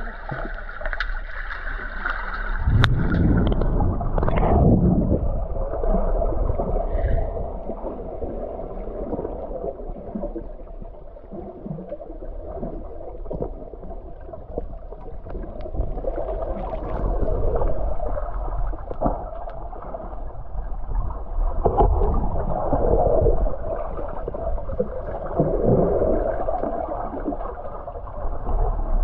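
Muffled underwater water noise heard through a submerged camera: a low, churning gurgle of moving water that swells and fades, with scattered small clicks and knocks.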